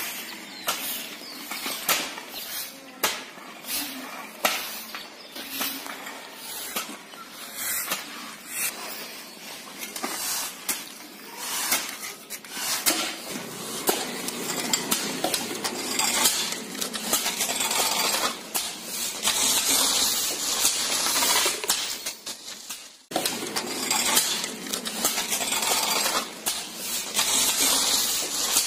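A metal hand blade scraping against a concrete path and slicing weeds along its edge, with stiff brooms sweeping: many sharp scrapes and clicks that grow into denser, hissy scraping, with a brief break near the end.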